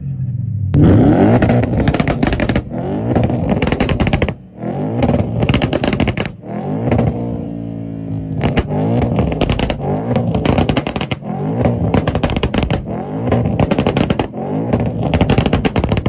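A car engine revving hard over and over, its pitch climbing and dropping repeatedly. It breaks off briefly about four and six seconds in and winds down about halfway through before revving again.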